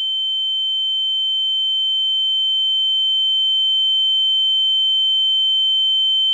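A steady, high-pitched electronic sine tone, unbroken and slowly growing louder, with nothing else heard.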